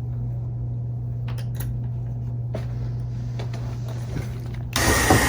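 A steady low hum with a few light clicks of screws and hardware being positioned, then near the end a loud burst as a cordless drill starts driving a new screw into the door knob plate.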